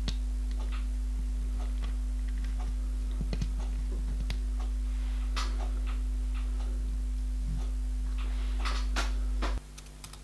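Small light clicks and taps of tiny brass parts and a small screwdriver being handled against the jaws of a steel bench vise, over a steady low hum that cuts off near the end.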